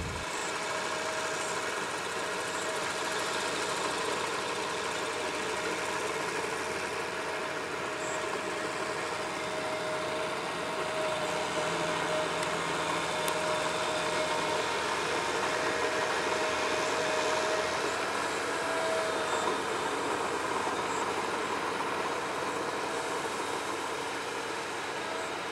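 Crawler tractor's engine running steadily, with a continuous whine over the engine noise.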